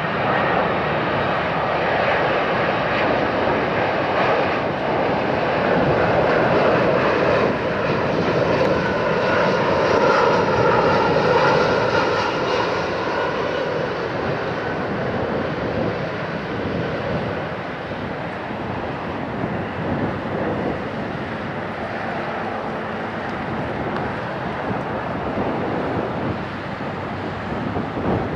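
Four-engined Airbus A340-300 jet airliner on landing approach, its CFM56 turbofans giving a steady whining jet sound. It grows loudest as the plane passes, about a third of the way in, and then eases off as it comes down toward touchdown.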